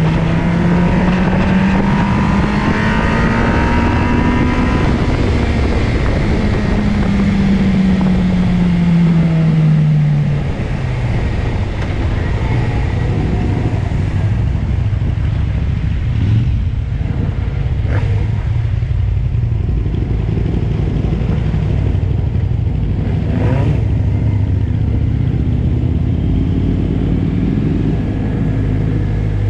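Motorcycle heard onboard with heavy wind on the microphone. Its engine note climbs, then drops away over about ten seconds as the bike slows off the track. After that a lower, steady engine rumble carries on at pit-lane speed, with a few short knocks.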